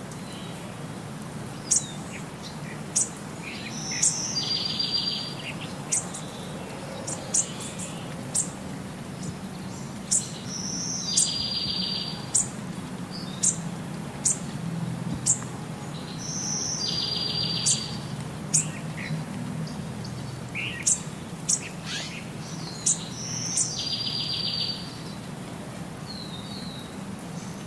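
Birdsong: high, short chirps and a roughly one-second buzzy trill that comes back about every six and a half seconds. It sounds like a looped recording of birds rather than sound from the scene.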